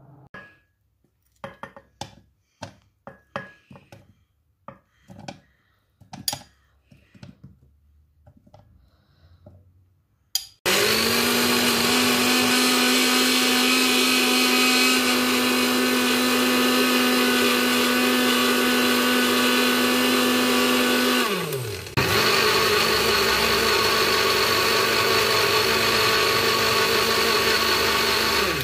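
Countertop blender puréeing cut strawberries. Before it starts there is a scatter of light knocks and clacks. The motor starts about ten seconds in and runs steadily, winds down with a falling hum a little past the two-thirds mark, then starts again at once for a second run.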